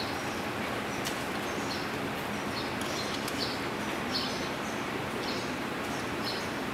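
Small birds chirping in short, quick notes again and again over a steady hiss of background noise.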